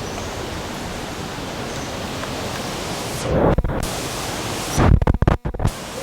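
Steady rushing roar of the Düden waterfall, broken twice, about three and five seconds in, by loud low rumbling bursts on the microphone that briefly muffle the water noise.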